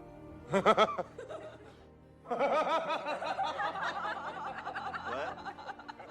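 People laughing over background music: a short laugh about half a second in, then longer, continuous laughter from just past two seconds.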